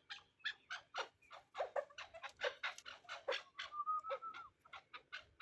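Chukar partridge calling in a quick run of short, sharp clucking notes, about three or four a second, with a brief thin whistle-like note in the middle.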